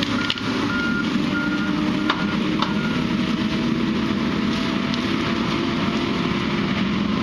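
Heavy machine's engine running steadily, with three short reversing-alarm beeps in the first two seconds and two sharp knocks about two seconds in.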